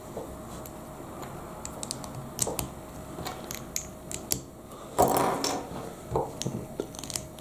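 Small plastic LEGO bricks clicking and snapping together in the hands, in scattered sharp clicks, with a louder clatter of pieces about five seconds in.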